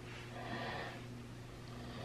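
A person breathing audibly, with one slow breath about half a second in, over a steady low hum.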